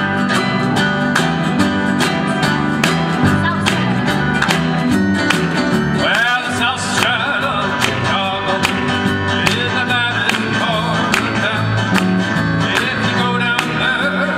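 Live band of acoustic guitars, keyboard and drums playing an upbeat rock-and-roll instrumental with a steady beat. About six seconds in, a lead melody with sliding notes comes in over the strummed guitars.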